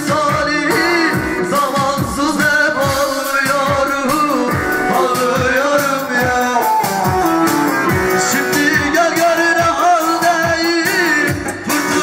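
A man singing a song into a handheld microphone, amplified through a PA speaker, over electronic backing music with a steady beat.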